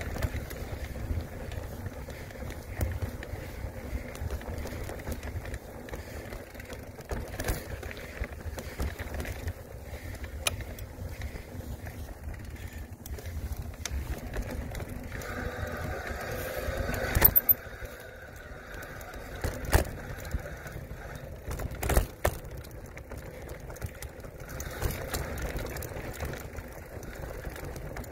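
Mountain bike rolling over sandstone slickrock, heard from a handlebar-mounted camera: a steady low rumble of the tyres on rock, broken by scattered knocks and rattles from the bike jolting over bumps. The loudest knock comes a little past halfway.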